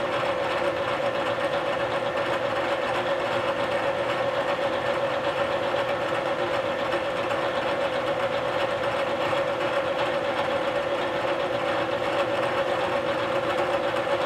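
Bridgeport vertical milling machine running steadily, its spindle turning a half-inch end mill with an even hum and a steady whine. The cutter is being raised slowly toward the aluminum block to touch off a pecking zero before facing.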